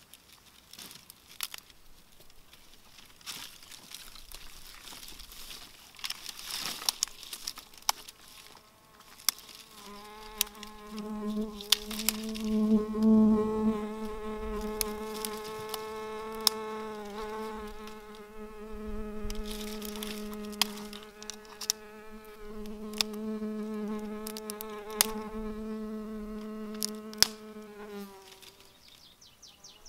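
A flying insect buzzing close to the microphone, a steady, even-pitched drone that starts about a third of the way in and stops shortly before the end. Scattered sharp clicks and snaps come throughout.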